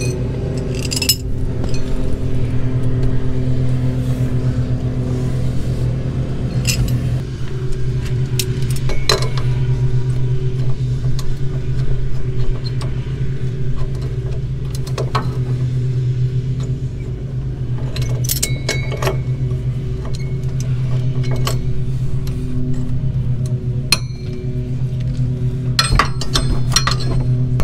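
A small engine drones steadily, most likely a neighbour's lawn mower running close by, its level rising and falling a little. Over it come scattered sharp metal clinks of hand tools and locking pliers against a shock absorber's upper mount, in small clusters about two-thirds of the way in and near the end.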